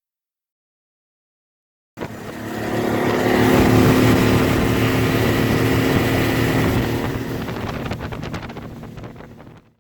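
A motorboat's engine running, starting abruptly about two seconds in, building up, then fading away near the end.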